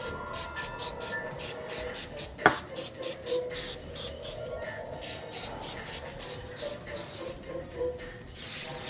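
Aerosol can of Pam cooking spray hissing in many short squirts, two or three a second, with a longer spray near the end, as it coats the cups of a metal muffin tin. A single sharp knock comes about two and a half seconds in.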